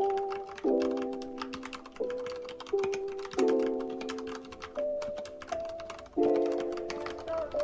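Typing on an Akko 3068 mechanical keyboard: a quick, steady patter of key clicks. It sits under louder background music of sustained keyboard-like chords that change about every second and fade between changes.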